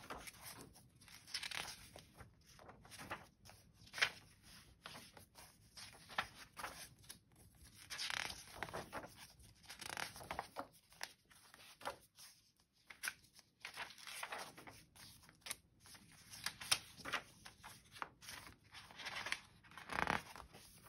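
Paper pages of a handmade junk journal, a Little Golden Book with added scrapbook papers, being turned one after another: repeated swishes and rustles at irregular intervals.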